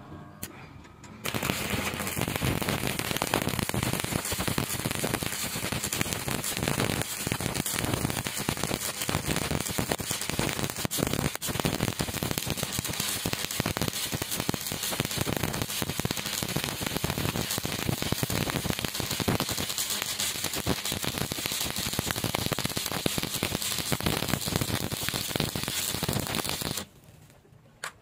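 Stick welding arc crackling steadily as a flux-coated electrode lays a bead along a wide gap in a steel joint. The arc strikes about a second in and cuts off shortly before the end.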